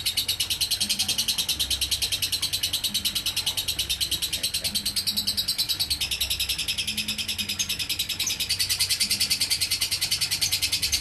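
Lovebird ngekek: one long, unbroken, high chattering trill of fast, even notes, about nine a second. It is the nonstop kind of ngekek that Indonesian bird keepers call "konslet".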